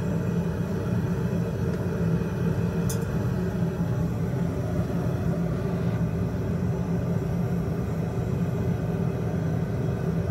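Gas forge running with a steady low rush. A brief light metallic clink comes about three seconds in.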